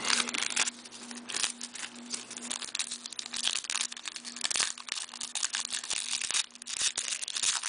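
Shiny wrapper of a hockey card pack being crinkled and torn open by hand: dense, irregular crackling with louder crackles scattered through.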